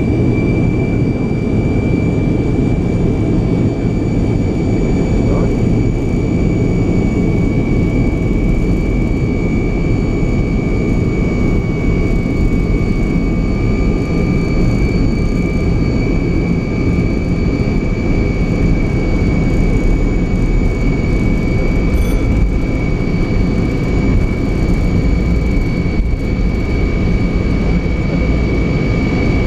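Soloviev D-30 turbofan engines of an Ilyushin Il-76 at takeoff power during the takeoff roll: a loud, steady deep rumble with a high, steady whine on top.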